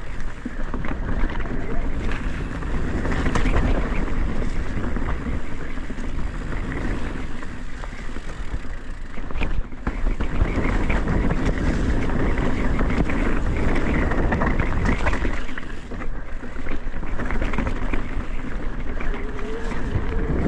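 An electric mountain bike riding a forest trail: tyre roll and trail rumble, with wind buffeting the microphone in gusty swells.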